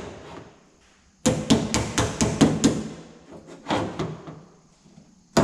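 Body hammer tapping quickly on the door skin, with a pause of about a second and then a rapid run of about eight taps, a few softer taps, and one sharp strike at the end. The taps locate the pry tool pressing up behind the panel: the sound tells the bodyman when he is on it.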